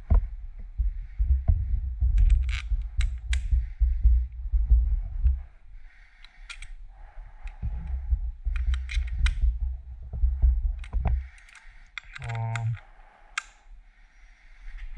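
Hand tools and small motorcycle lever parts being handled, with many sharp clicks and taps over a low rumble that drops away twice. About 12 seconds in there is a short low hum.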